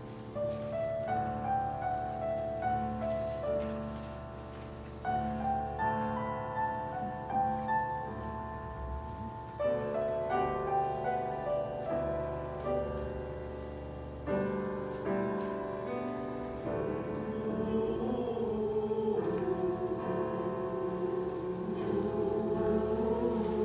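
Piano introduction played as separate struck notes and phrases, then a church choir comes in singing about two-thirds of the way through, with the piano accompanying.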